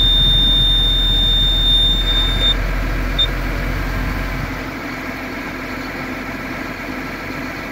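Case IH MX255 Magnum tractor cab warning beeper sounding one steady high-pitched beep for about two and a half seconds, then a short beep about a second later, over the tractor running. About halfway through, the deep low rumble drops away and a quieter, steady hum carries on.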